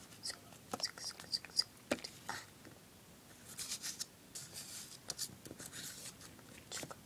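Light taps and clicks of small plastic toy figures and toy shopping bags being picked up and set down on a tabletop, with a soft rustle about the middle.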